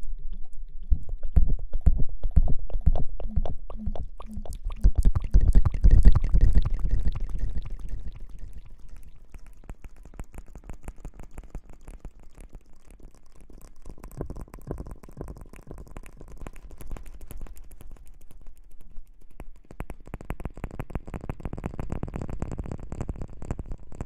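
Close-miked ASMR handling sounds: an object rubbed and tapped against the microphone, giving heavy muffled thumps and crackles for the first several seconds, then softer, continuous scratchy rustling.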